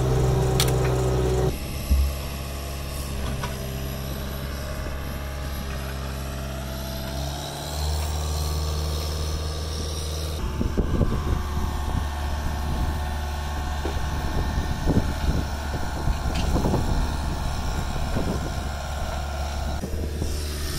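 An engine running steadily at constant speed, its hum stepping to a slightly different pitch a few times. Scattered knocks and clunks come through over the second half.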